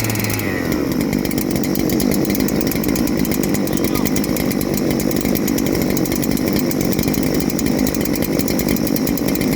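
Large two-stroke chainsaw engine of a Neo-Tec NH8120 (a Husqvarna 3120XP clone) running steadily and loudly.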